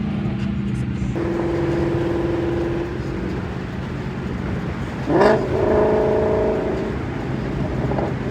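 A 2016 Mustang's 5.0 V8 with cat-deleted exhaust running under way. Its pitch steps up about a second in, and a quick sharp rev comes about five seconds in before it settles into a steady drone again.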